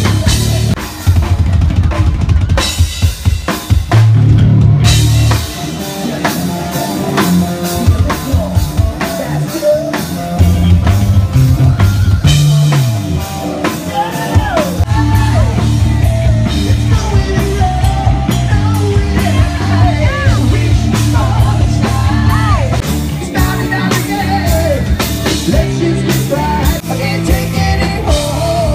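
Live rock band playing, with the drum kit prominent (bass drum and snare hits) over a bass line; from about halfway through, a higher melodic line that bends up and down in pitch joins in.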